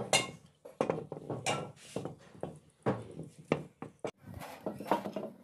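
Irregular clinks and knocks of a metal sewing machine head being handled and wiped on a hard floor, with rubbing and crinkling as protective plastic film is peeled off it.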